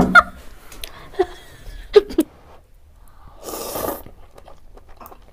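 A person slurping thukpa noodles from a fork, one noisy slurp of about half a second a little over three seconds in, after a few soft mouth clicks.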